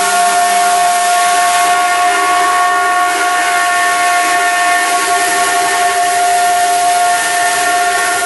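CNC router spindle running steadily, a high whine of several fixed pitches over a continuous hiss.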